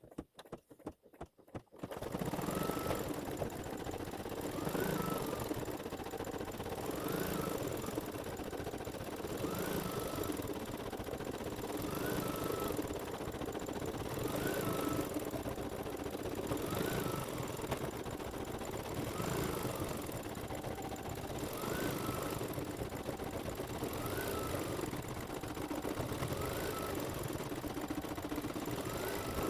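Embroidery machine stitching a row of small dots in silver metallic thread. It starts up about two seconds in and runs steadily, with a short rising whine repeating about every two and a half seconds.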